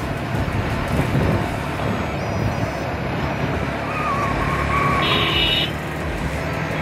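Motorcycle running at road speed with engine, tyre and wind noise on the microphone, and a short high tone about four to five seconds in.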